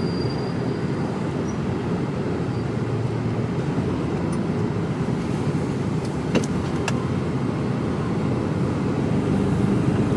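Mercedes Actros lorry driving slowly, heard from inside the cab: a steady low engine and road rumble, with two faint clicks a little past the middle.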